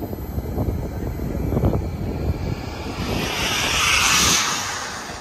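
Turbine-powered radio-controlled F-86 Sabre scale jet making a flyby: its high rushing hiss swells to a peak about four seconds in, then fades. Wind gusts on the microphone before the jet's sound builds.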